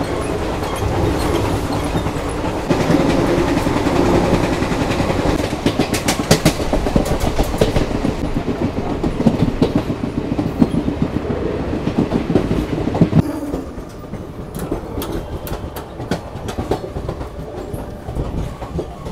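Express train coaches running at speed, heard at an open coach door: a steady rumble with wheels clattering over rail joints and points. About thirteen seconds in it becomes quieter, with fewer and more widely spaced clicks, as the train runs along a station platform.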